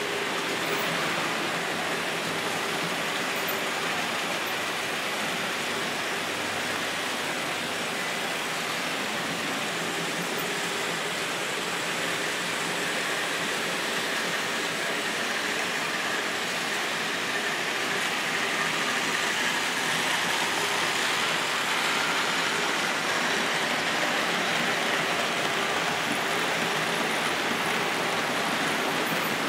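Märklin HO scale model trains running on the layout: a steady rolling noise of small wheels on metal track and electric motors, a little louder in the second half.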